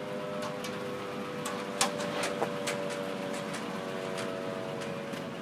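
A steady mechanical hum with a few held tones, broken by irregular light clicks and taps. The sharpest click comes about two seconds in.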